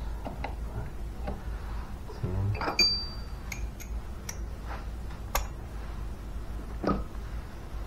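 Metal hand tools clinking and clicking as sockets and a socket wrench are picked out of a tool rack and handled, a few separate clinks spread out, one of them ringing briefly about three seconds in. A steady low hum runs underneath.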